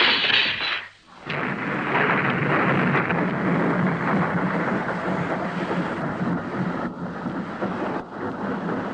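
Radio-drama thunder sound effect: a burst of noise breaks off about a second in, then a long, steady rumble of thunder with a rain-like hiss.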